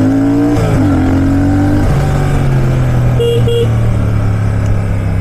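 Royal Enfield Shotgun 650's parallel-twin engine accelerating: the pitch rises, drops at a gear change, rises again, then settles into a steady cruise. A horn gives two short toots about three seconds in, amid traffic.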